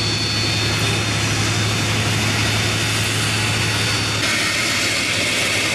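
Loud, steady engine noise: a continuous rush with a constant low hum, its tone shifting about four seconds in.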